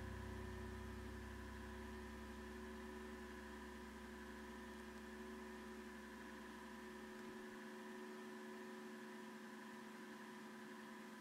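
Faint, steady electrical hum of the recording setup, several fixed tones over a light hiss. A deeper low hum under it cuts off about seven seconds in.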